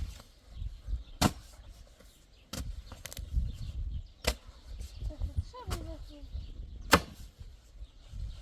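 Sharp knocks or strikes, about five of them irregularly spaced a second or more apart, with the loudest near the start and another about seven seconds in, over a low rumble.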